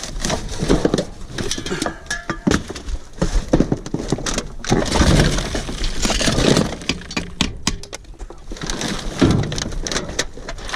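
Scrap and junk being handled and sorted by hand: a run of irregular knocks, clanks and clinks with rattling between them, and a few short metallic rings.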